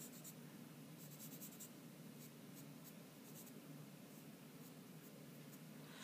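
Faint scratching and rubbing of chalk pencil shading being worked into drawing paper, in short strokes.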